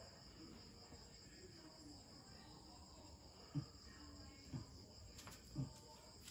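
Faint steady chirring of crickets, with three brief, soft low sounds about a second apart in the second half.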